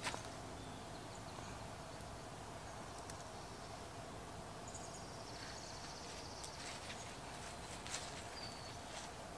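Quiet outdoor garden ambience with a steady low hum. An insect trills high and fast for a couple of seconds midway, and there are a few faint clicks.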